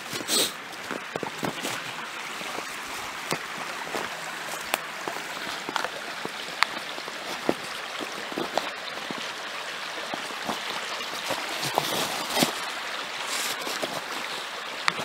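Small creek running steadily, an even rush of flowing water, with scattered light crunches of footsteps in snow.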